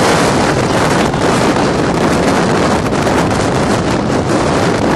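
Strong dust-storm wind buffeting the microphone: a loud, steady rushing roar.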